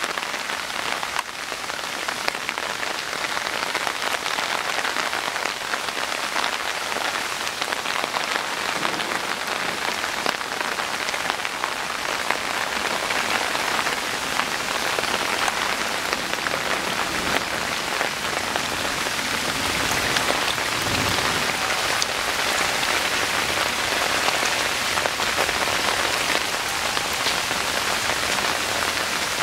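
Rainstorm: steady rain falling, a dense hiss of countless drop hits that holds an even level throughout, with a faint low rumble about two-thirds of the way in.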